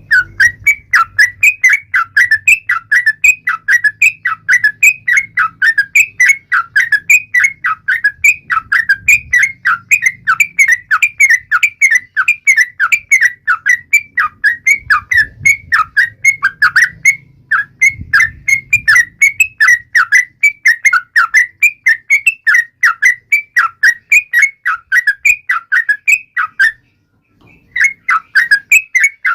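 Yellow-vented bulbul (trucukan) calling in a rapid, unbroken chatter of short whistled notes, about four a second. It breaks off for about a second near the end, then resumes.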